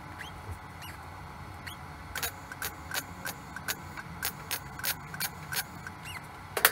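Welding arc on 24-gauge sheet steel, struck in short pulses: a run of short, sharp crackles at about three a second from about two seconds in, with the loudest snap near the end. A few faint high chirps come earlier.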